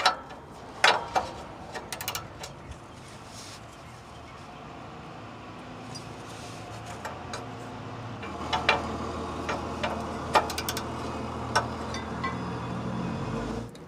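A 19 mm deep-well socket and wrench working on the rusted catalytic converter flange bolts: scattered metallic clinks and clicks of the tool on the bolts. About eight seconds in, a low steady drone joins and runs until it cuts off near the end.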